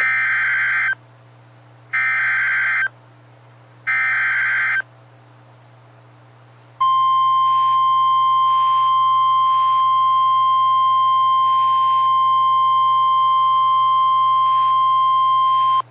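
Emergency Alert System opening on NOAA Weather Radio: the SAME digital header sent three times as one-second data bursts about two seconds apart, encoding a severe thunderstorm warning. About seven seconds in comes the steady single-pitch 1050 Hz warning alarm tone, held for about nine seconds, over a faint low hum.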